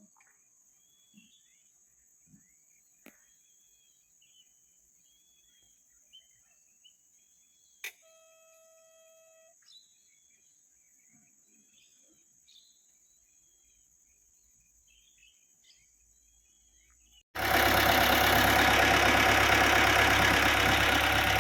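Birds chirping over a steady high insect hiss, then at about seventeen seconds the Komatsu PC78US excavator's diesel engine comes in abruptly and loud, running while it warms up.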